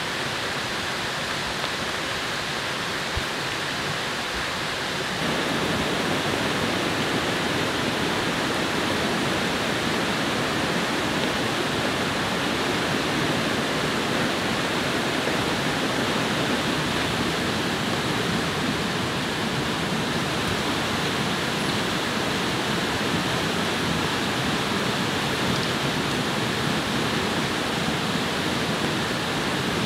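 Steady rushing of water, stepping up in loudness about five seconds in and then holding even.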